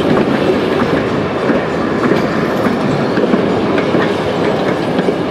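A string of steel passenger coaches rolling steadily past at low speed: a continuous rumble of wheels on rail with scattered light clicks.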